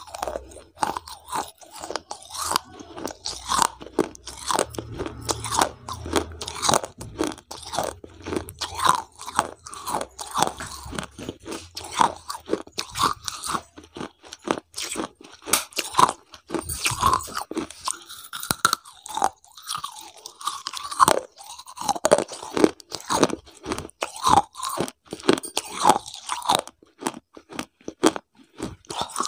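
Crunching and chewing mouth sounds made right against a lapel microphone: a dense, rapid run of crisp crunches and wet clicks.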